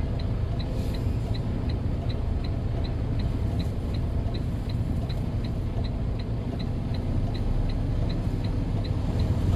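Semi truck's diesel engine running steadily at low speed, heard from inside the cab, with a light regular ticking over it at about two or three ticks a second.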